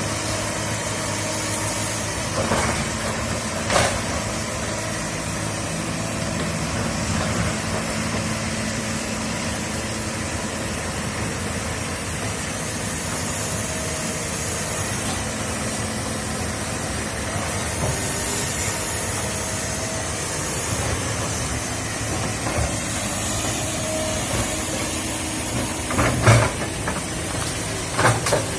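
Excavator's diesel engine running steadily. There is a sharp knock about four seconds in and several more near the end.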